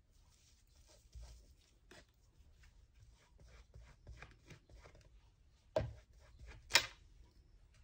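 Faint rubbing and rustling of a clear acrylic stamp being wiped clean by hand. A knock comes a little before six seconds in, and about a second later a louder, sharp, very short burst.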